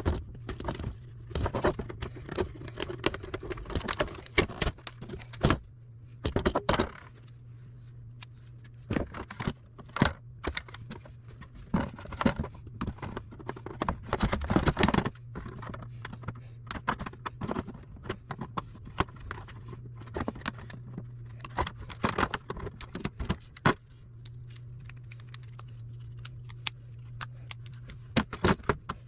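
Food service scales being taken apart by hand: irregular metallic clinks, clatters and knocks of tools and metal parts, with a steady low hum underneath.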